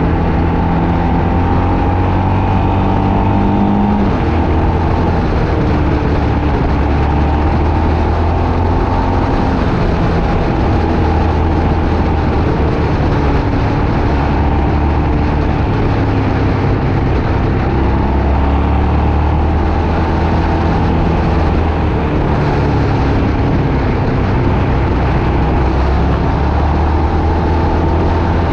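Car engine running under way, with road noise; the engine note rises and falls with the throttle and gear changes, with a shift about four seconds in.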